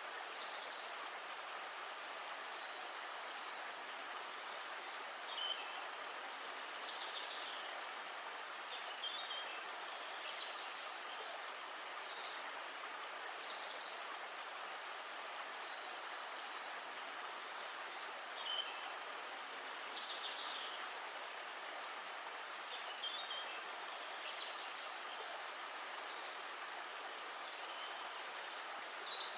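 River water flowing steadily, with birds chirping in short high calls every second or two.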